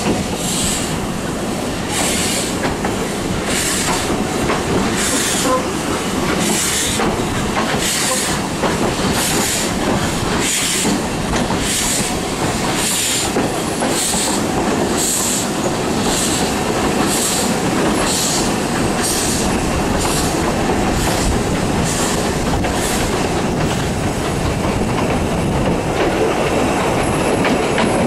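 Narrow-gauge Beyer Peacock 2-4-0 tank engine working a train at low speed, heard from the carriages behind: a steady beat of steam exhaust about once a second over the rumble of the coaches' wheels on the track. A thin, high wheel squeal comes in near the end as the train rounds curves.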